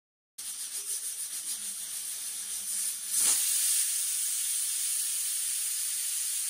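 Aluminium pressure cooker letting off steam through its weighted whistle valve: a pulsing hiss that surges louder about three seconds in, then hisses steadily. This is the cooker's first whistle, the sign it has come up to pressure.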